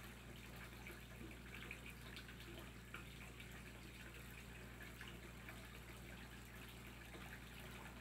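Faint trickle and drip of spring water running from a bamboo spout into a stone basin.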